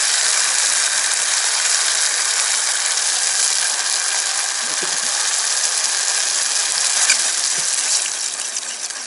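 Spicy pasta sauce sizzling in hot oil with fried garlic and shallots in an aluminium pot, a steady loud hiss with faint crackles that eases a little near the end as the sauce is stirred.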